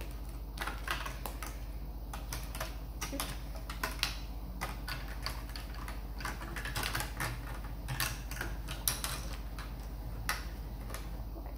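Plastic Lego bricks clicking and clattering as a broken section of the build is pressed back together by hand, in an irregular run of small clicks.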